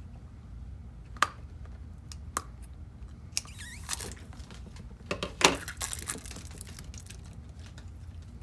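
Stress ball being cut open: two sharp clicks, then crinkling and tearing noises, the loudest about five seconds in, over a steady low hum.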